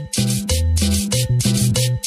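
Cumbia music: a scraped percussion rhythm of about six strokes a second over a bass line stepping between a few low notes.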